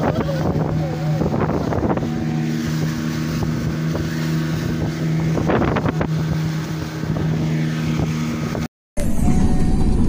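Small passenger boat's motor running steadily at speed, with water rushing and splashing along the hull and wind on the microphone; voices shout briefly at the start. The sound cuts off near the end, giving way to road vehicle noise.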